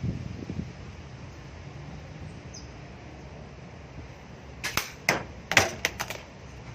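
Spring airsoft sniper rifle: a quick run of five or six sharp clicks and knocks about five seconds in, over a steady low background noise.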